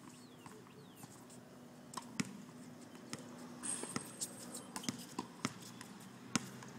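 Tennis ball impacts on an outdoor hard court: a few sharp pops of racket on ball and ball bouncing, the clearest about two seconds in, then a cluster of lighter taps in the second half. A faint steady hum lies underneath.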